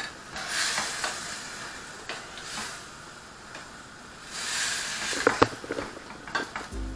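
Minced beef sizzling in a frying pan while a metal spoon stirs it, the hiss swelling each time the meat is turned over. A few sharp scrapes of the spoon against the pan come about five seconds in.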